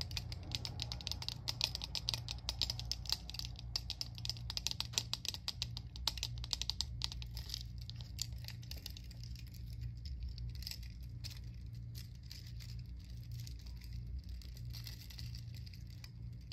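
Small metal chains hanging from a pair of sunglasses clinking and rattling as the frame is handled and jiggled. Quick light ticks come thick and fast for the first several seconds, then thin out.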